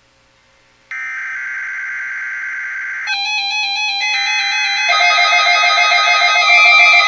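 Music with guitar comes in about three seconds in and grows steadily louder. Before it there is a short gap, then about two seconds of a steady electronic sound.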